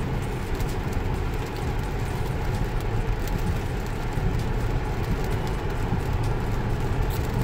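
Steady road noise heard inside a Tesla's cabin in heavy rain: a low rumble of tyres on the wet road with the hiss of rain and spray, and faint ticks of raindrops.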